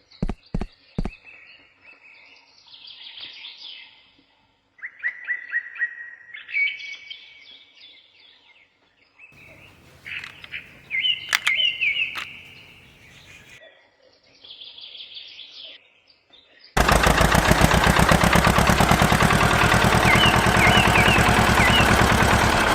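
Small birds chirping in short twittering phrases, with a few sharp clicks at the start. About seventeen seconds in, a loud, fast rattling noise starts abruptly and keeps on, with the chirping still heard over it.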